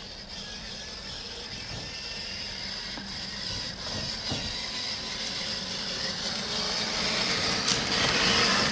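Axial SCX10 III Gladiator RC crawler's electric motor and gears whining steadily as it drives, growing louder near the end and then cutting off suddenly.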